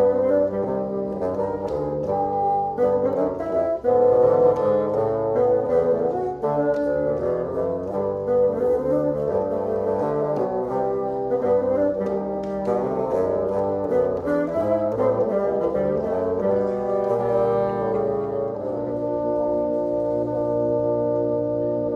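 Bassoon quartet playing a brisk tune with quick moving notes in all four parts. About three-quarters of the way through, it settles into slow held chords.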